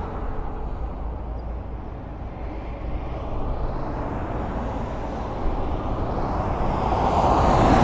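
Highway traffic: a steady low rumble of vehicles on the road, with one vehicle passing close and growing louder near the end.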